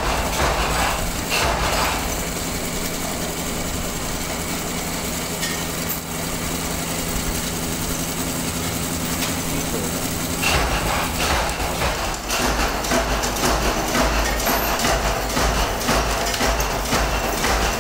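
Workshop nut-tapping machine running with a steady motor hum. From about ten seconds in, the sound turns rougher and busier, with a denser rattle.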